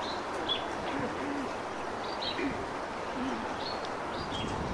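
Birds calling over a steady outdoor background: a few low, arched cooing notes like a dove, mixed with scattered short, high chirps.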